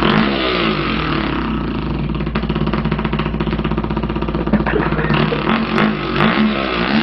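A person imitating a two-stroke dirt bike engine with the mouth: a continuous buzzing drone whose pitch dips and rises a few times like revs and gear changes.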